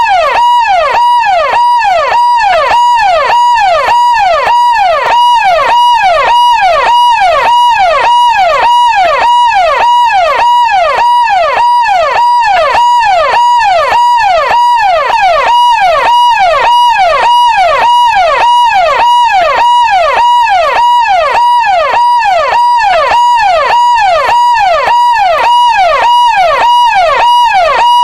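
Electronic police siren sounding a fast, repeating rise-and-fall wail, loud and unbroken.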